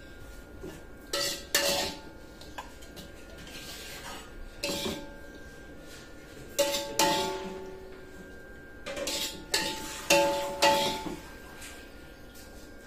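Metal spatula knocking and scraping against a steel wok as sautéed spices are scraped out of it: about ten sharp, irregular clanks, each ringing briefly.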